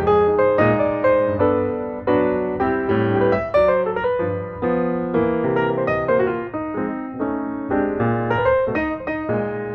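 Background piano music: a melody of struck notes, each fading away, over lower chords.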